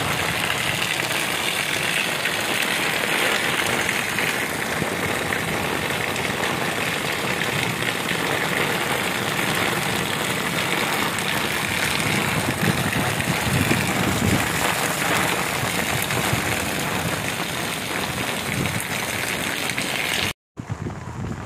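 Heavy rain pouring onto wet concrete and puddles, a dense, steady hiss and patter. Near the end it cuts out for a moment and comes back quieter.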